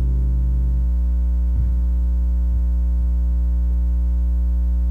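Steady electrical mains hum with evenly spaced overtones, the loudest sound throughout. The last strummed acoustic guitar chord rings out and fades away in the first second, and a faint low knock comes about one and a half seconds in.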